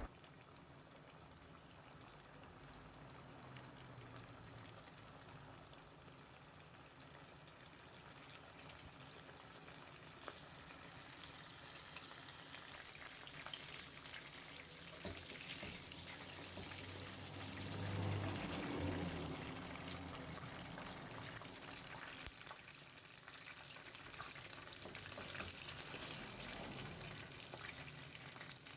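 Chicken wings deep frying in hot oil: a faint, steady sizzle that grows louder about halfway through.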